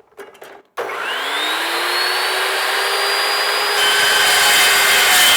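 Electric power saw switched on, its motor whine rising in pitch over about a second as the blade spins up, then running steadily; about three seconds later the sound thickens as the blade starts cutting into scrap material for strips.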